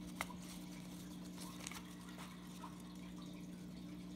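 Baseball cards being handled and flipped through by hand: soft, irregular clicks of card stock over a faint steady hum.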